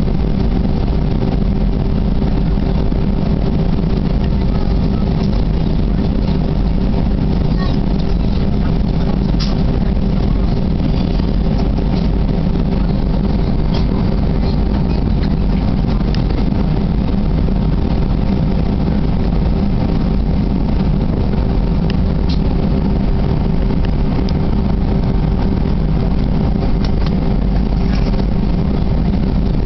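Cabin noise inside an Airbus A320-200 taxiing: its two IAE V2500 turbofans at taxi power and the airflow make a steady low rumble, with a steady hum running under it. The sound holds level throughout, with no spool-up.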